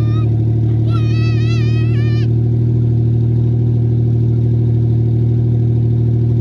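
Turbocharged Mazda MX-6 engine on E85 idling steadily soon after a hard cold start. A brief high, wavering voice-like sound about a second in.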